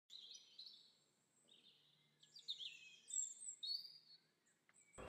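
Songbirds chirping and warbling in short, high phrases, with a few quick falling notes.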